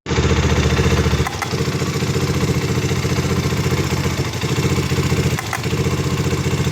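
Rusi Classic 250i motorcycle engine idling with a steady, even pulse. It dips briefly about a second in and again near the end, each time with a faint click. This is typical of the clutch-release click the owner first blamed on the clutch housing and later traced to loose engine and chassis mounting bolts.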